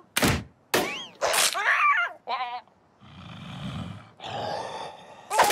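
Cartoon vocal sound effects: a sharp hit just after the start, then a few short squawking cries that glide up and down in pitch, then about two seconds of muffled grunting and groaning.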